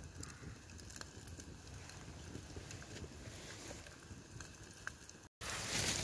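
Wood campfire crackling, with scattered small pops. Near the end the sound cuts out for a moment, then comes back as the louder sizzle of burger patties cooking on a grill over the flames.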